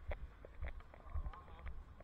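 Bicycle ride picked up by a helmet-mounted camera: irregular light clicks and rattles over low rumbling thumps, as the bike rolls slowly along a city street.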